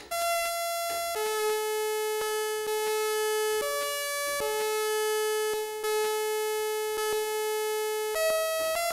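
Artisan Ottava analog-hybrid synthesizer sounding a bright, buzzy tone, held mostly on one pitch with short jumps up and back, and a quicker run of stepping pitches near the end. Its LFO is set to run one cycle on pitch modulation, with faint clicks here and there.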